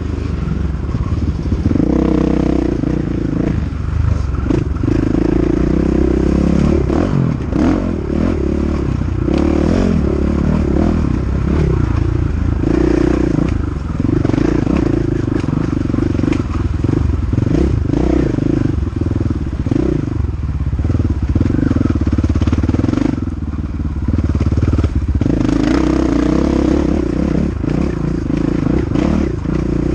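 KTM 500 EXC dirt bike's single-cylinder four-stroke engine under hard riding, its pitch climbing and falling as the throttle opens and shuts, with short drops off the throttle about a second in and again around two-thirds of the way through.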